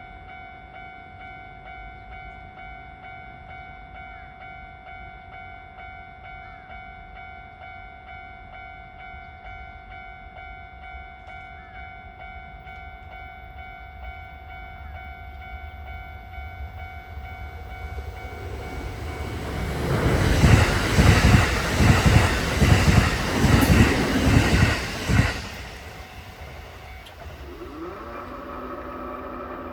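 Level crossing warning bell ringing steadily as a Kintetsu 8A series electric train coupled to a 9020 series set approaches. About twenty seconds in the train passes loudly for around five seconds, its wheels clacking over the rail joints.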